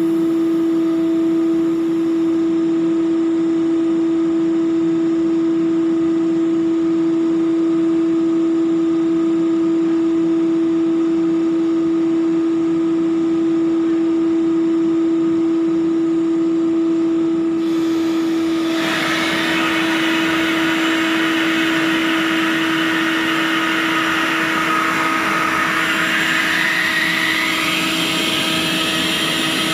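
Hydraulic power unit of an FRC davit running with a steady hum on one held tone. About two-thirds of the way in a loud hiss of hydraulic flow joins it and shifts in pitch as the davit is worked during its functional test.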